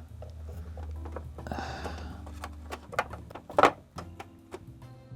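Clicks and knocks from hands working a plastic toy typewriter's battery compartment as corroded old batteries are taken out. There is a short scrape about a second and a half in and a sharp click a little past halfway, over a low steady hum.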